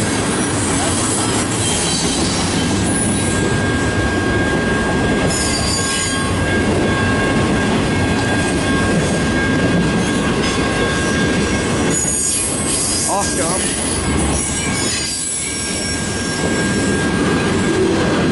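Long CN freight train's cars rolling past at close range, steel wheels on rail with a steady high squeal and two brief sharper squeals, about five seconds in and again about twelve seconds in.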